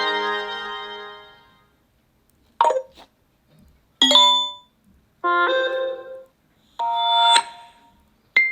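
Samsung Galaxy Note 20 Ultra ringtones and alert tones playing one after another: a chiming chord fades out over the first second and a half, followed by about five short electronic melodies of a second or less each, separated by brief silences.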